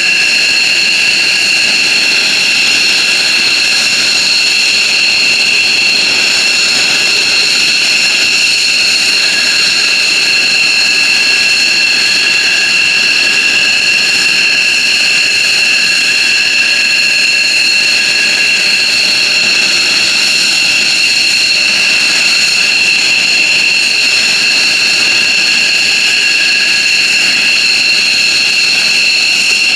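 F-15J Eagle fighter's Pratt & Whitney F100 turbofans running after engine start, a loud steady high-pitched turbine whine that holds without change.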